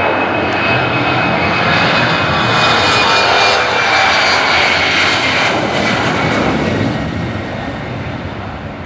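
Twin turbofan engines of a Lufthansa Regional Embraer E-jet at takeoff thrust during its takeoff roll and lift-off. It is a steady jet roar with a thin high whine, loudest a few seconds in and easing off near the end.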